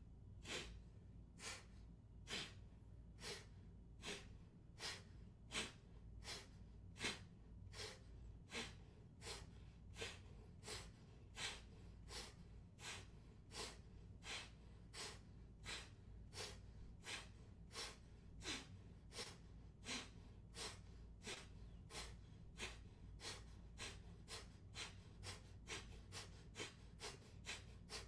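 Kapalabhati breathing: short, forceful exhalations through one nostril while the other is held closed, each puff driven by pulling in the belly. The puffs come about one every three quarters of a second, quickening to about two a second near the end.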